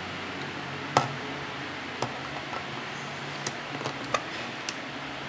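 A CdS porrofinder being mounted on a Mamiya C330F twin-lens reflex body: one sharp click about a second in, another a second later, then a few lighter clicks and taps as the finder is seated on the camera's top.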